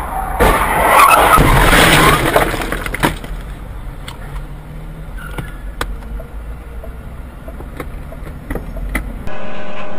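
Car collision picked up by a dashcam in traffic: a loud crash lasting about two seconds near the start, followed by scattered sharp clicks of debris and road noise. Near the end it gives way abruptly to a steady hum.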